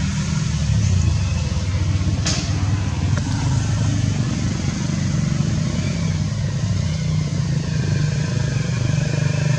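Steady low drone of a running engine, with one sharp click about two seconds in.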